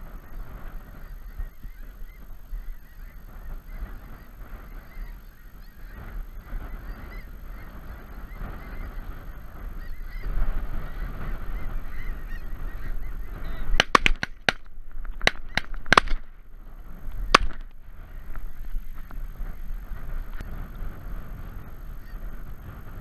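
Snow geese honking and chattering steadily as a flock works overhead. Partway through comes a quick volley of six or seven sharp bangs, then one more about a second later.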